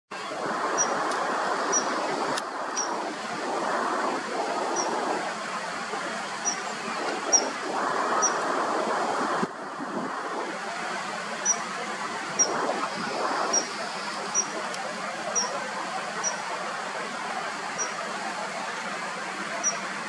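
Steady rush of road traffic that swells and fades as vehicles pass, dropping abruptly about halfway through. Over it, short high-pitched chirps repeat roughly once a second, with a few sharp clicks near the start.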